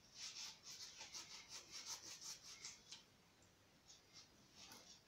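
Faint hand scrubbing with a sponge: quick rubbing strokes, about four a second, stopping for a second and a half about three seconds in, then starting again near the end.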